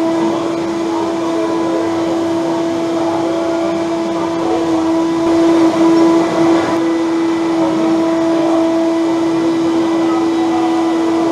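A steady mechanical hum at one unchanging pitch, like a small motor or fan running, holding level throughout.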